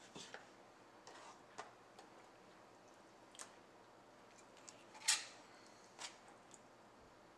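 Knife cutting raw deer heart on a plastic cutting board: a few faint, scattered clicks and taps of the blade on the board, the loudest about five seconds in.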